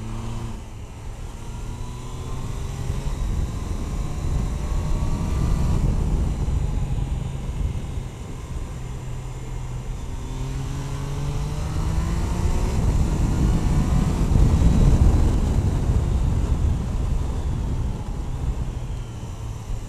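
Triumph Tiger Sport 660's three-cylinder engine under way, its pitch rising as it accelerates, dropping back about six seconds in, then climbing again until about twelve seconds in. Heavy wind rumble on the camera's microphone, loudest about fifteen seconds in.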